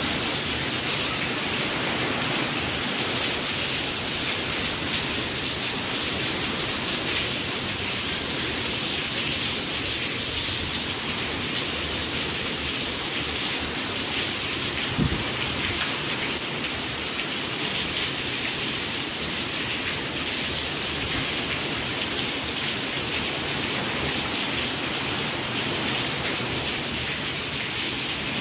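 Steady rain falling, an even hiss with fine pattering drops, and a single low thump about halfway through.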